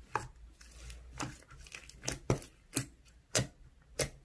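Slime being squeezed and pressed by hand, making a series of short wet clicks and pops, about eight of them at an uneven pace of roughly two a second.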